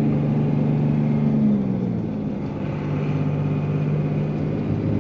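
Second-generation Dodge Ram's 5.9-litre 24-valve Cummins inline-six turbodiesel heard from inside the cab, pulling under heavy towing load on a steep climb. About a second and a half in the revs fall and the engine briefly eases off as the six-speed manual is shifted up a gear, then it pulls steadily again at lower revs.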